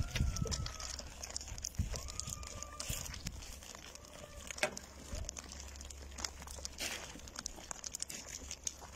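A flock of Naimi sheep walking on dry dirt: many hooves scuffing and clicking with rustling, and two faint thin whistling tones in the first three seconds.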